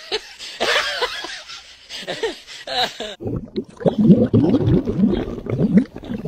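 A person's voice for about three seconds, then loud, low bubbling and gurgling from a dog with its mouth in puddle water.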